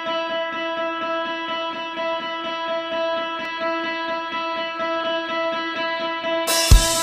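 Instrumental background music: a held chord with a fast, even picked pulse. Near the end it suddenly turns much louder, with heavy low beats.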